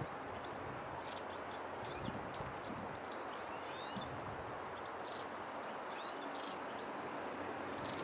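Small songbirds calling: a few short, high chirps spaced through, and about two to three seconds in a quick run of notes falling in pitch, over a steady low background hiss.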